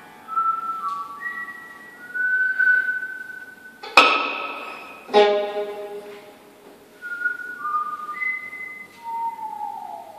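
Contemporary improvised music for piano, two violins and viola: thin, high held string notes that sound almost whistled. About four and five seconds in come two sharp struck piano sounds, each ringing and fading. A tone glides downward near the end.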